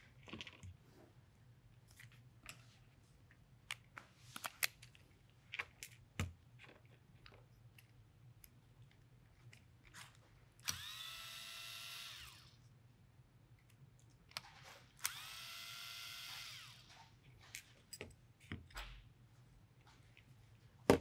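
A 3.6 V cordless electric screwdriver runs twice, each time for about a second and a half, spinning up to a steady whine as it backs out the screws holding a plate on an airgun's trigger housing. Scattered light clicks and taps come from small metal parts and tools being handled.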